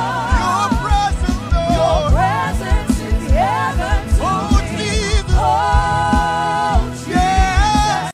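Gospel worship music: a voice sings long, wavering held notes and upward glides over a fast pulsing low beat.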